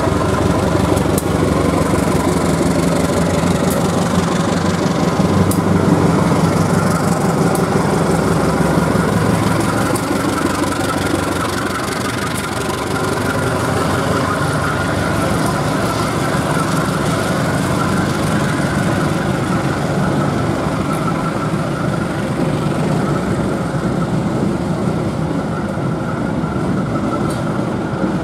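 Diesel-electric locomotive engine of a CC 201 (GE U18C) running steadily as it pulls a passenger train out of the station. Its coaches roll past in the later part.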